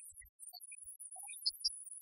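Turbocharged car's exhaust giving two sharp pops in quick succession about one and a half seconds in, after a few low thumps.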